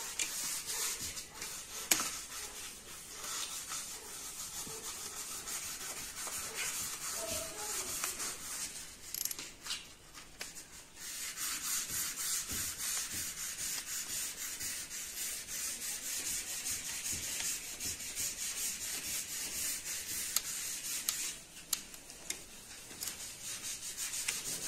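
Torque wrench ratchet clicking rapidly as it is worked back and forth, tightening cylinder-head bolts, with one sharper, louder click about two seconds in and a couple of brief pauses.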